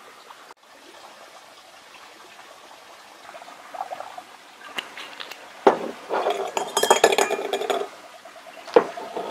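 Grain spirit poured from a bottle into a glass jar. A burst of glugging and splashing comes a little past the middle, among glass clinks and two sharp knocks of glass on glass.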